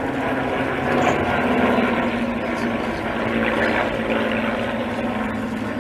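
Propeller-driven piston-engined warbird flying past, its engines giving a steady drone.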